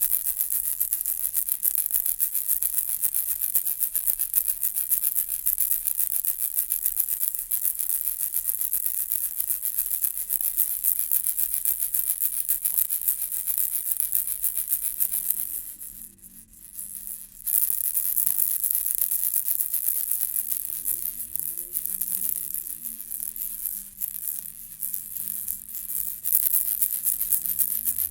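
Baby rattle ball shaken continuously, a dense, hissy high-pitched rattling of the small beads inside. It stops briefly about two-thirds of the way through, then resumes more unevenly before returning to a steady shake.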